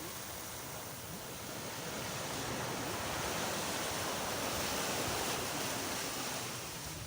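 Surf washing onto the beach: a wave swells in about two seconds in and fades away near the end.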